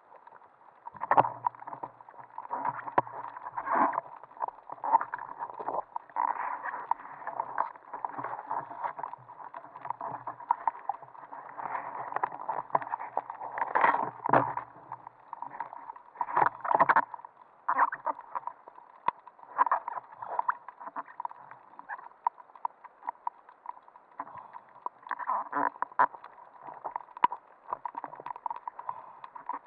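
Muffled underwater handling noise through a camera's waterproof housing: irregular knocks, clicks and scrapes over a steady water hiss as gloved hands and a struggling octopus work against the metal pole the camera is mounted on.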